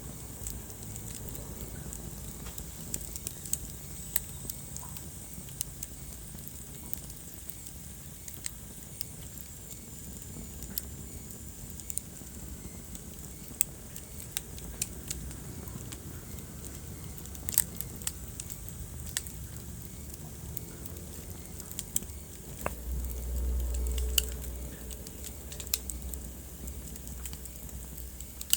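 Wood fire burning in a fireplace, crackling with irregular sharp pops over a steady soft hiss. A low rumble swells briefly about three-quarters of the way through.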